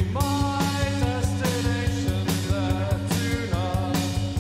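Background rock music with a steady drum beat and pitched guitar or vocal lines.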